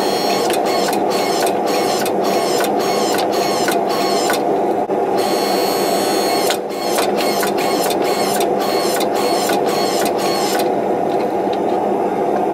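Electric log-splitter forge press running as its hydraulic ram squeezes a glowing Damascus steel billet flat. It gives a steady motor and pump hum with a rapid rhythmic pulsing, about two beats a second. The pulsing breaks off briefly near the middle and stops shortly before the end, leaving the hum.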